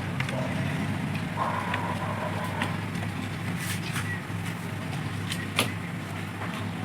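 A few faint clicks and taps of a DC power adapter and its plug being handled and connected, over a steady low hum.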